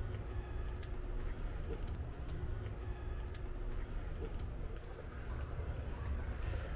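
Insects trilling without a break, one steady high-pitched tone, over a low rumble.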